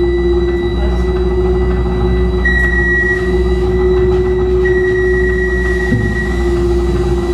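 Steady mechanical hum with a constant droning tone and a thin, high whine above it.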